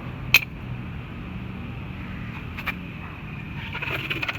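Metal clinks from putting the car's wheel back on: one sharp clink, a lighter one about two seconds later, then a short run of rapid clicking near the end, over a steady low hum.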